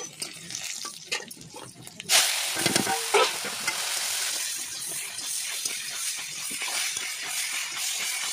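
Leafy greens hitting hot oil in an iron kadai, with a sudden loud burst of sizzling about two seconds in. The sizzle then runs steadily as the greens are stirred, with a metal spatula clicking and scraping against the pan.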